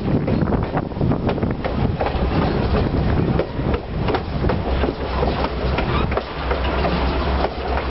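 Mount Hood Railroad passenger train rolling along the track, heard from on board: a steady low rumble with many irregular clicks and clacks of the wheels on the rails.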